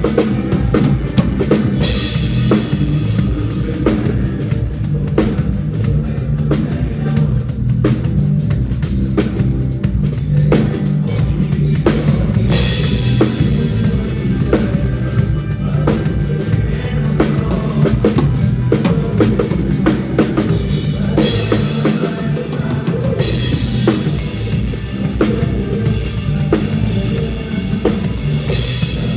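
A band playing an instrumental passage, drum kit to the fore: a kick and snare beat over a low bass line, with cymbal crashes every nine or ten seconds.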